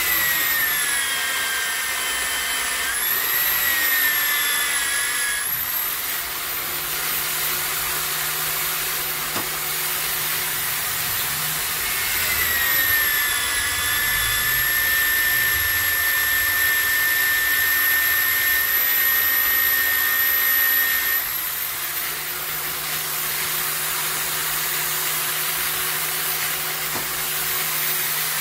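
Electric drill mounted in a homemade drill-press stand, boring a hole through a metal pulley. The motor's whine sags in pitch while the bit cuts, near the start and again for several seconds from about halfway, and climbs back each time the feed pressure eases.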